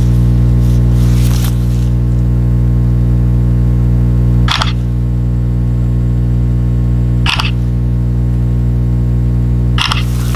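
Three short camera-shutter clicks, a little under three seconds apart, over a steady low hum.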